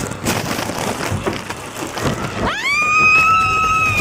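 A steady rushing noise, then about two and a half seconds in a horn starts, sliding quickly up to one steady high note that holds.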